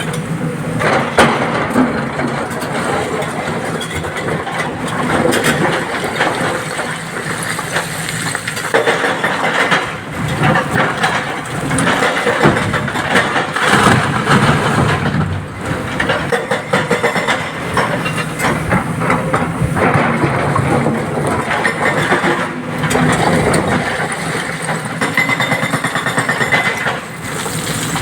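Diesel excavator working at a quarry face, its engine running steadily under load amid repeated knocks and clatter of rock as it loads a tipper truck.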